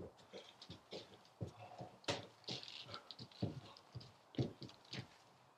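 Footsteps of several people walking in across a wooden floor, an uneven run of soft knocks and taps.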